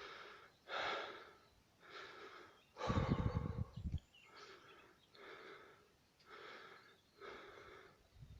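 A person breathing audibly between chanted phrases: short breaths about one a second, with one louder breath about three seconds in that carries a low rumble.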